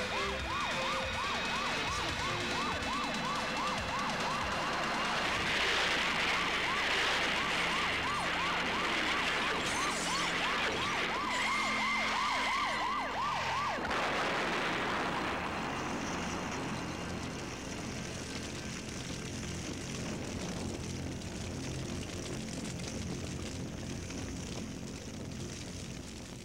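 Police car siren in a fast yelp, rising and falling about three times a second, cutting off suddenly about halfway through. A steady rushing noise continues after it.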